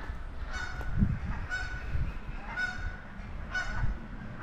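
Geese honking in a chorus, one call about once a second, calling to each other as an alarm at a potential predator close by.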